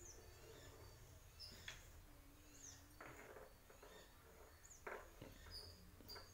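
Near silence: faint outdoor ambience with a few distant high bird chirps and a few soft rustles.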